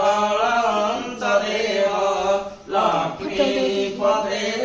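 A man chanting Hindu puja mantras in long, sustained phrases, with a short breath pause about two and a half seconds in.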